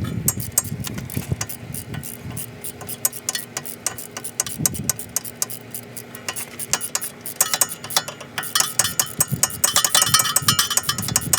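Ratchet wrench clicking rapidly as the wheel speed sensor bolt is run down into the hub, with metallic clinks ringing from the tool. The clicking grows louder and busier about two-thirds of the way in.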